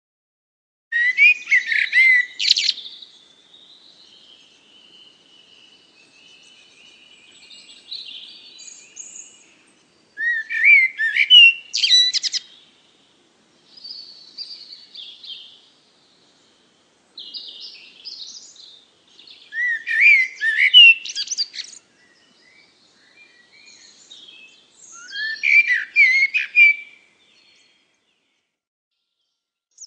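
Birdsong: repeated bouts of quick, high chirping phrases a few seconds apart, with quieter twittering between them.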